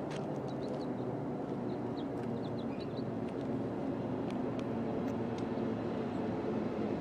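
Union Pacific diesel locomotive running steadily as it approaches at low speed, its engine hum growing slightly louder. Birds chirp faintly in the first second or so.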